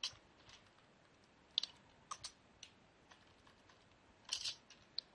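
Computer keyboard being typed on, faintly: scattered single keystrokes, with a quick run of several about four seconds in.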